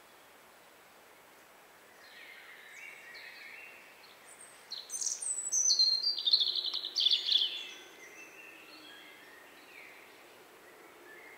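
Raccoons squabbling: a run of loud, high-pitched trilling squeals that step downward in pitch, starting about four and a half seconds in and lasting about three seconds, with fainter chirps before and after.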